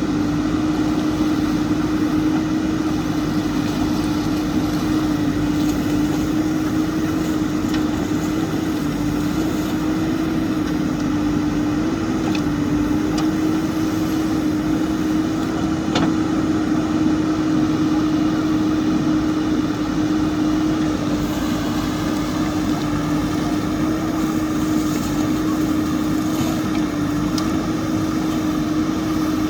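JCB backhoe loader's diesel engine running at a steady speed, a constant droning hum with no revving. A single sharp tick about halfway through.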